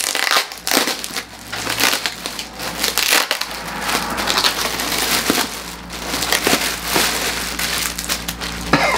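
Clear plastic packaging bag crinkling and crackling continuously as it is handled and pulled open to free a stuffed plush toy.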